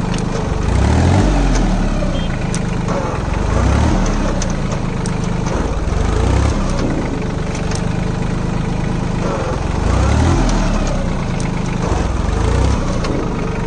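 Sonalika Tiger 26 4WD mini tractor's diesel engine running as the tractor is driven slowly, its note rising and falling several times.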